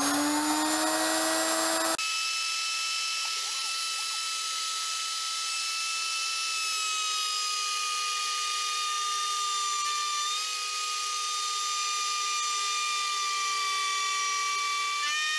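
Router spindle of a homemade belt-driven CNC running at high speed with its end mill cutting aluminum: a steady, high-pitched whine of several tones. The sound changes suddenly about two seconds in, and the pitch wavers slightly later on.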